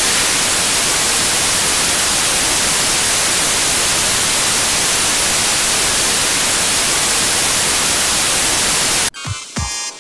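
Loud, steady static hiss of white noise that cuts off sharply about nine seconds in, where music with heavy bass hits begins.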